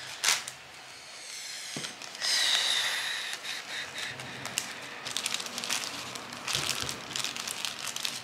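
Small clear plastic zip bags crinkling and rustling as they are handled. There is a brief rasping sound about two seconds in, and a run of small crackles and clicks through the second half.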